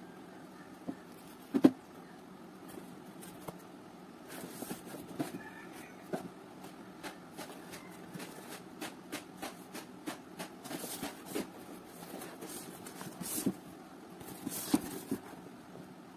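A cardboard box being handled and turned over by hand, with scattered knocks and scraping rustles against the cardboard. The loudest knock comes about a second and a half in. A faint steady hum runs underneath.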